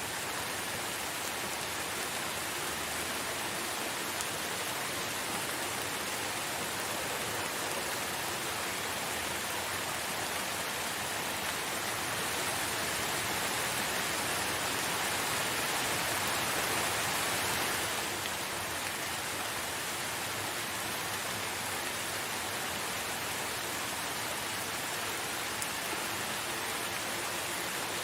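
Steady rain falling, an even dense hiss that swells a little about halfway through and eases back after a few seconds.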